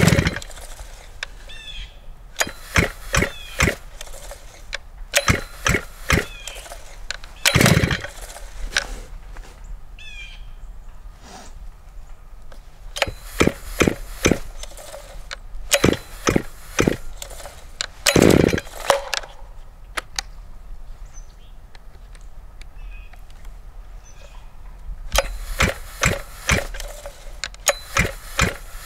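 Stihl MS-881 chainsaw being pull-started over and over without catching on a cold start: short clusters of rattling knocks from each pull of the starter cord, with two heavier thumps among them.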